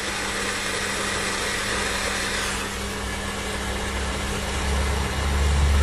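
Steady machine hum with an even hiss over it. The hiss eases about two and a half seconds in, and a low rumble swells near the end.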